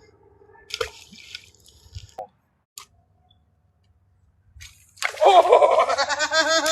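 A few short water splashes and clicks about one to two seconds in, then loud laughter from about five seconds on.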